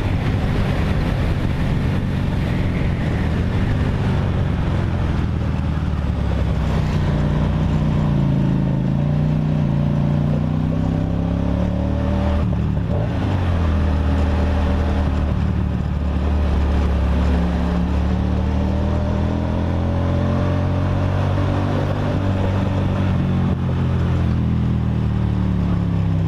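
Kasinski Comet GTR V-twin motorcycle engine and exhaust, heard from the bike while riding, the note rising and falling with the throttle and gear changes, over wind and road noise.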